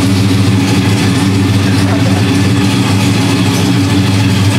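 Chevrolet Silverado's 5.3-litre V8, with a mid-size camshaft and Stainless Works headers and exhaust, idling steadily with no revving.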